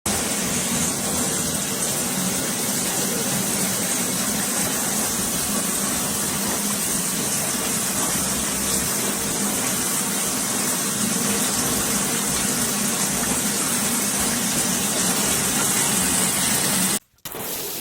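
Water spraying steadily from a large stainless-steel rain shower head, a loud even hiss of falling water. It breaks off abruptly for a moment near the end, then starts again.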